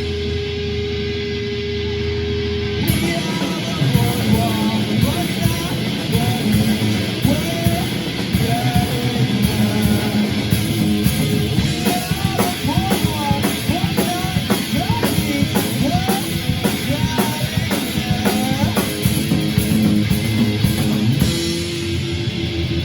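Punk rock music: distorted electric guitar and drum kit. A single held note sounds for about the first three seconds, then the full band comes in with a steady beat.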